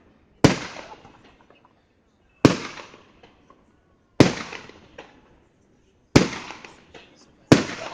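Fireworks display with aerial shells bursting: five loud bangs about one and a half to two seconds apart, each fading out over about a second.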